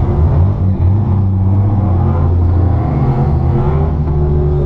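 The single-turbo RB26 straight-six of a 1993 Nissan Skyline R32 GT-R running at low revs, heard from inside the cabin, its note rising and falling slightly.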